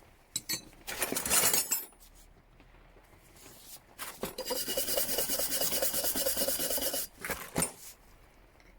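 Metal hand tools being handled: a short clatter about a second in, then a steady scraping and rubbing on metal for about three seconds from about four seconds in.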